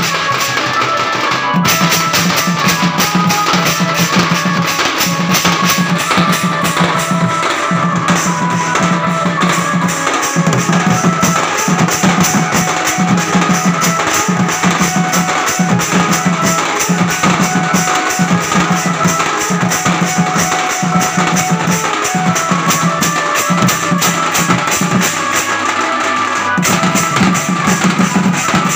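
Live folk drumming: a small stick-beaten drum and a large hand-held drum played in a fast, continuous rhythm, with a held, stepping melody line above the drums.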